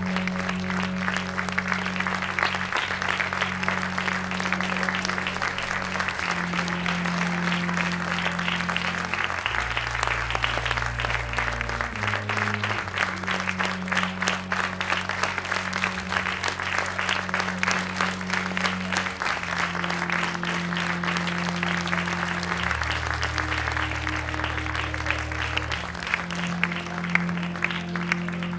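Audience applauding steadily, with music of slow, sustained low chords underneath that change every few seconds.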